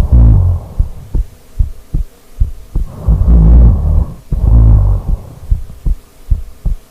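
A person snoring. Low, rough snores come at the start and twice more from about three seconds in, with short clicks in between.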